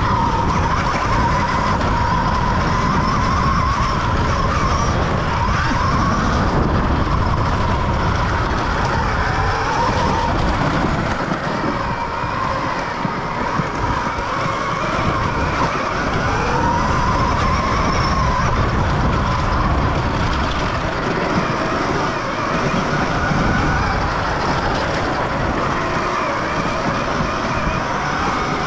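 Dirt bike engine being ridden, its revs rising and falling again and again as the throttle opens and closes.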